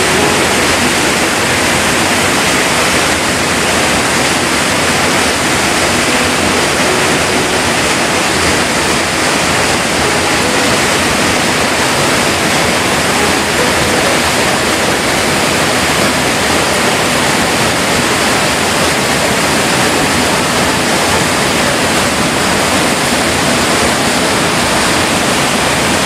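Small waterfall pouring down over rocks close by: a steady, loud rush of falling water that does not change.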